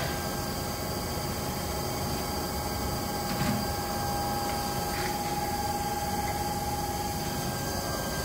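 Equiptop Hitech EMV-600 CNC vertical machining center running with a steady mechanical hum and a steady whine that stops near the end, with a couple of faint clicks.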